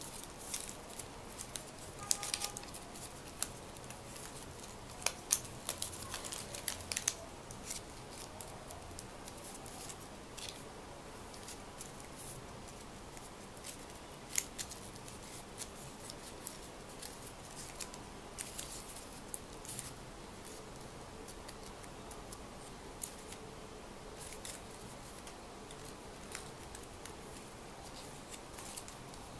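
Sheet of paper being worked by hand: sharp crackles and snips, thick in the first several seconds and sparser after, over a steady faint hiss.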